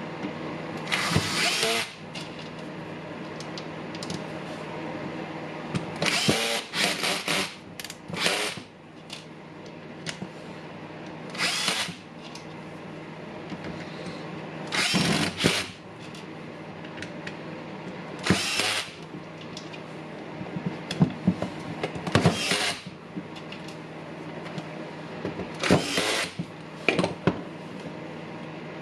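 Makita cordless impact driver run in about ten short trigger bursts, each under a second, a few seconds apart. It is being test-run and works again after its faulty switch was repaired.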